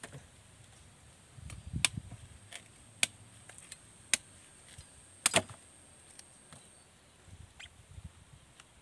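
Kitchen knife chopping into a raw bamboo shoot: several sharp strikes roughly a second apart, the loudest a quick double about five seconds in.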